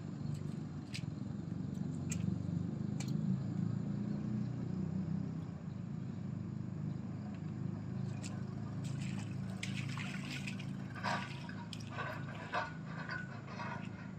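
A heavy machine's engine running steadily with a low rumble, with scattered light clicks and knocks and a flurry of higher metallic clinks about two-thirds of the way in.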